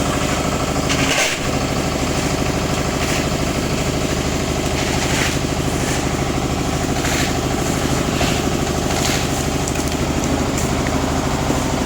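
Engine running steadily at a low idle-like speed, with a short swishing or scraping noise laid over it about every two seconds.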